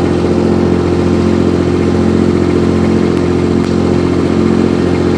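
Baumalight TRL 630D compact track loader's engine running at a steady speed as the machine comes off its trailer.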